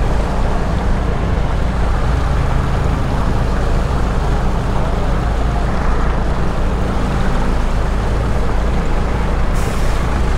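Yamaha Mio Gear 125 scooter's single-cylinder engine running steadily at speed as the rider tests it on the road, over heavy wind and road noise on a helmet-mounted microphone. A brief hiss comes near the end.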